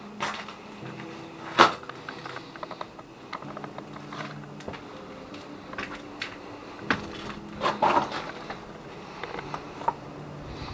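Irregular clicks and knocks, the loudest about a second and a half in and another cluster around eight seconds, over faint steady tones.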